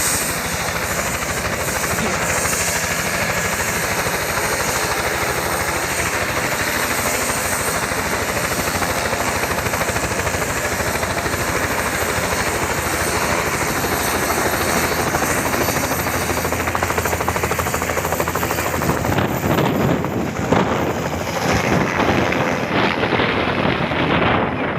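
Helicopter running close by, its rotor chopping steadily. About 19 seconds in the sound turns rough and gusty, with wind buffeting the microphone, and the high-pitched part fades away near the end.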